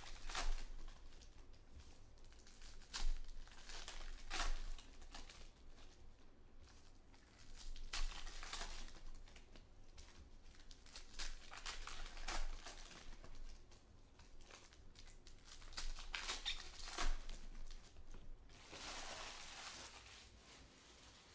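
Plastic wrappers of baseball card packs being torn open and crinkled by hand, with the cards handled, in short bursts every few seconds and a longer crinkle near the end.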